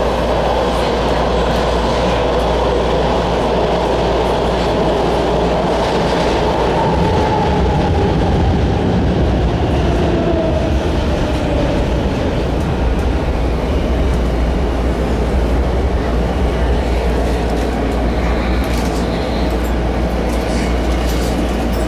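Washington Metro subway train running, heard from inside the car: a steady, loud rumble of wheels on rail, with a motor whine that falls in pitch about midway.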